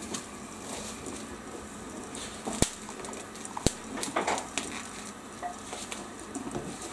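Pot of shijimi (corbicula) clams boiling under its lid: a steady bubbling hiss, with two sharp clicks about a second apart near the middle and a few lighter ticks.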